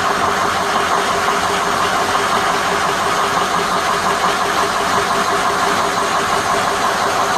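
Ford 6.0L Power Stroke V8 turbodiesel idling steadily with its ICP (injection control pressure) sensor unplugged; it keeps running without dying.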